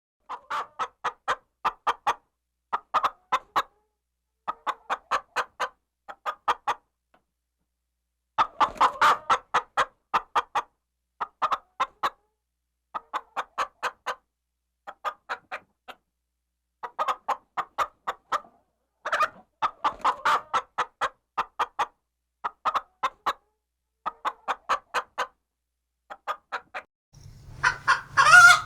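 Chicken clucking in short bouts of rapid clucks, each bout lasting about a second, with brief pauses between them. Near the end a louder call starts over a low hum.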